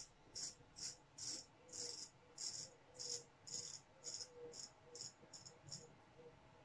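Straight razor scraping through lathered beard stubble in short, quick strokes, about two a second: a faint, crisp rasp with each pass of the blade.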